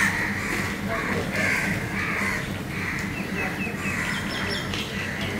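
Crows cawing over and over, a harsh call roughly every half second, with a smaller bird chirping a few quick notes from about three seconds in.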